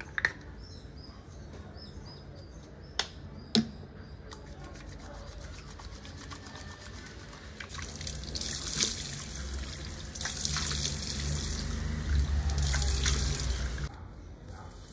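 Water running from a tap into a washbasin. It starts about halfway through and is shut off suddenly near the end, after a few sharp knocks earlier on.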